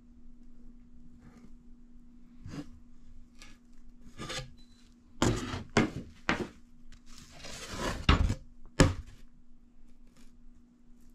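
Thin quilted maple drop tops being handled: a string of rustles, scrapes and knocks as the wooden sheets slide and tap against each other, with a longer scraping slide and then a sharp knock past the middle. A faint steady hum runs underneath.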